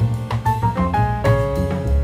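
Background music: a jazz-style tune with piano and a drum kit keeping a steady beat.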